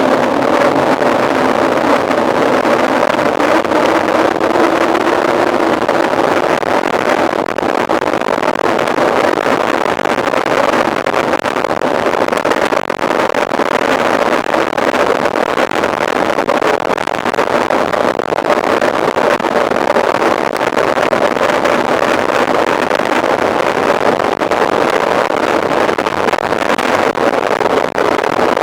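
Steady rushing of wind over the microphone with rolling tyre noise and a faint steady hum, as from a camera carried on a moving mountain bike.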